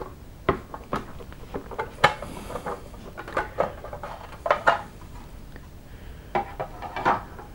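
Lid of a plastic electronics enclosure being worked loose and lifted off: a series of irregular clicks and knocks of plastic parts against each other.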